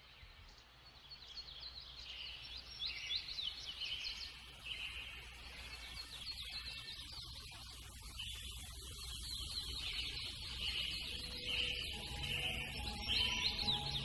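Many small birds chirping and twittering together, a dense run of quick high chirps over a low steady rumble. Faint music comes in near the end.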